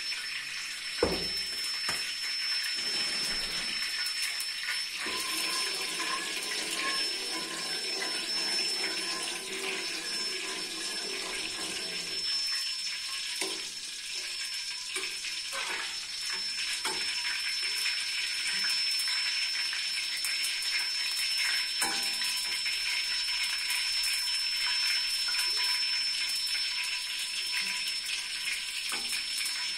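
Ghee heating in an aluminium karahi on a gas stove, giving a steady sizzling hiss, with a thump about a second in and a few light clinks of a steel ladle stirring in the pan.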